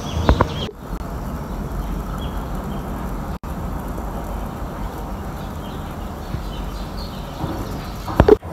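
Outdoor ambience: a steady low rumble with faint, scattered bird chirps, and a couple of sharp knocks near the end.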